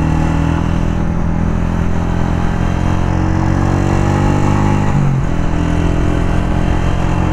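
Honda CG 125 SE's single-cylinder four-stroke engine running under way, its pitch climbing slowly as the bike picks up speed, then dipping sharply about five seconds in before climbing again.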